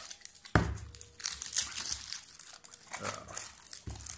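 Plastic packaging of a Flex Tape roll crinkling and crackling irregularly as it is handled and pulled open, with a couple of soft knocks.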